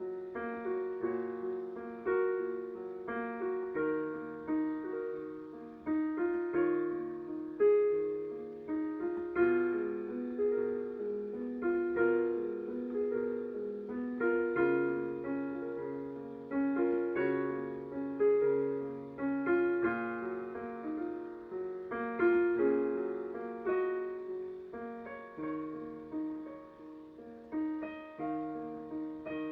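Solo piano playing a slow, quiet piece of chords and single notes, each struck note fading away, over sustained bass notes.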